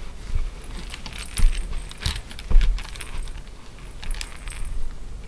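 Plastic baby rattle clattering and jingling in irregular clicks as the plush toy it hangs from is moved about, with a few soft thumps.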